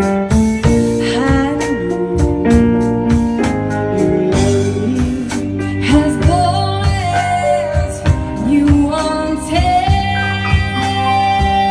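Live band music: pitched melody lines with held and sliding notes over keyboard, bass and a steady drum beat.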